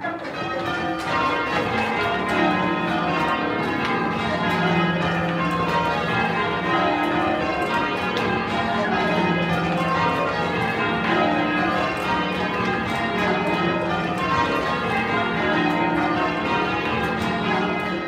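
A ring of eight church bells, tenor 22 cwt in E flat, being rung in full-circle change ringing: a continuous, even sequence of overlapping bell strikes, with the deep tenor sounding in each change.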